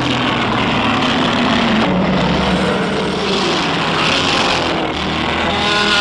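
Godzilla Terrestris roar sound effect from Godzilla Singular Point: one long, continuous monster roar with several pitches layered together, taking on a shriller edge about three to four seconds in.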